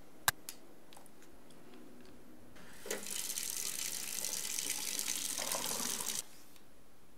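A sharp click, then a kitchen tap running into a stainless-steel sink for about three and a half seconds as a steady splashing hiss that cuts off suddenly.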